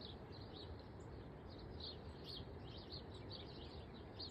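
Birds chirping: a dense run of short, high chirps over a faint steady low background noise.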